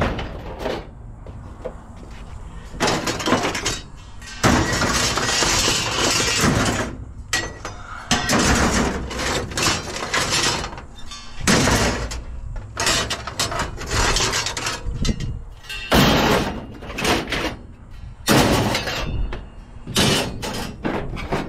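Scrap metal being shifted and dropped into a truck bed: repeated clanging, banging and scraping clatter in bursts, some stretches lasting a couple of seconds, with short pauses between.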